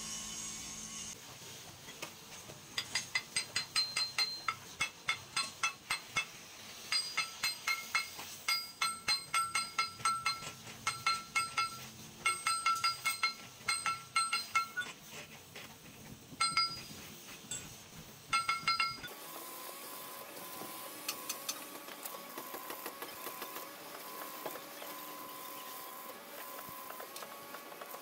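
Repeated sharp metal-on-metal strikes with a clear ring, in irregular clusters of several a second, as a steel flange and shaft are struck. In the last third the strikes stop and a steady hum with a constant tone takes over.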